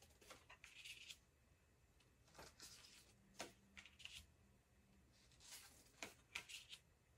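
Tarot cards being drawn off a deck one at a time and laid on a pile on a wooden tabletop: faint slides of card stock and light taps, in small clusters a second or two apart.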